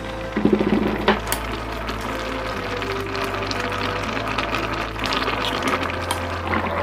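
Kimchi jjigae bubbling at a boil in a pot, with a few sharp clicks about a second in.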